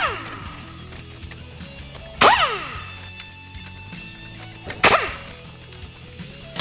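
8 mm valve-body bolts on a Ford 5R110W transmission being run out with a small power tool: three short loud bursts about two and a half seconds apart, each trailing off in a falling whine.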